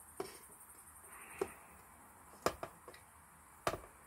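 Wooden chopsticks clicking against a thin aluminium ramen pot as noodles are picked out: several sharp, irregular clicks, two of them louder than the rest. Insects chirr steadily in the background.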